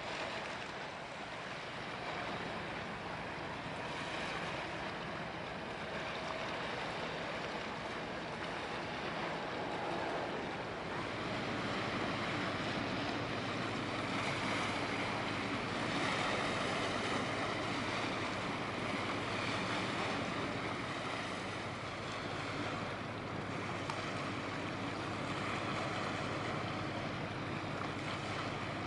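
Steady wind and water noise at the waterside, with wind buffeting the microphone. A low steady hum joins in about a third of the way through.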